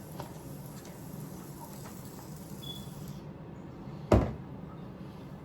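A single sharp thump about four seconds in, like something knocked or set down against a hard surface, over a steady low background hum.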